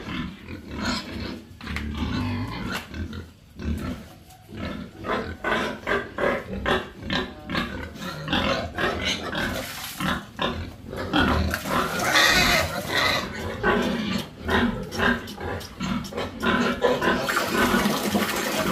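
Pigs in a pen calling and grunting in quick, overlapping bursts at feeding time, getting louder from about halfway through as liquid slop is ladled into their trough.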